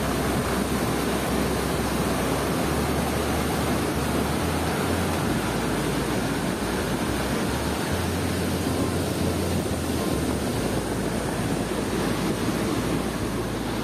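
Floodwater pouring through a dam's open sluice gates: a steady rush of churning white water.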